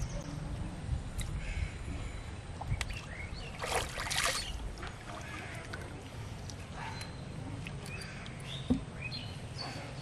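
Pond water sloshing and splashing as hands are rinsed in it, with one louder splash about four seconds in, over a steady low rumble. A few faint bird chirps come later.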